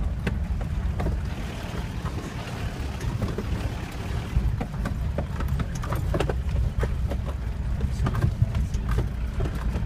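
Inside a vehicle on a rough road: steady low engine and road rumble with frequent knocks and rattles as it jolts over bumps.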